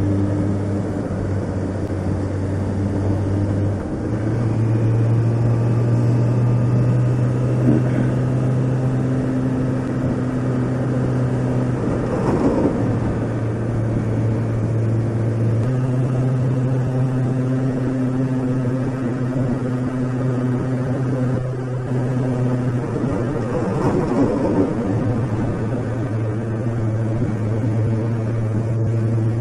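Motorcycle engine running steadily under way, heard from the rider's seat, its note stepping up and down a few times as the throttle changes. Two brief rushing swells, about twelve seconds in and near twenty-four seconds, rise over it.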